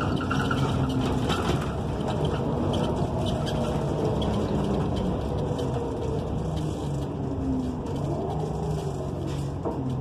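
Inside an articulated transit bus under way: the Cummins Westport ISL G natural-gas engine and Allison transmission run under a steady drone of road noise. The engine's pitch shifts up and down near the end as the bus changes speed.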